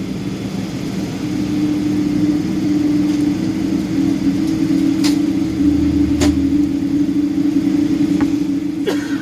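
Steady engine drone inside the cabin of a Boeing 777-200 on the ground, with a brief low rumble and a few sharp clicks partway through.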